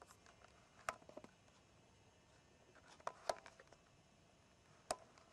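Faint, sparse taps and knocks of a push broom against the ground: a sharp one about a second in, a small cluster around three seconds in, and another near the end, over low hiss.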